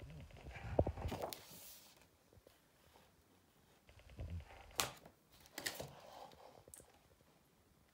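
Paper rustling as a page of a large photo book is turned about a second in, followed by a few more rustles and soft taps as the pages are handled, with one sharper click about five seconds in.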